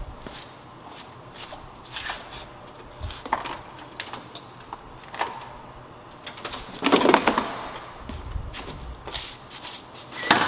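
Scattered knocks, taps and footsteps on a concrete floor as a person handles a car's front bumper, with a louder, longer handling noise about seven seconds in.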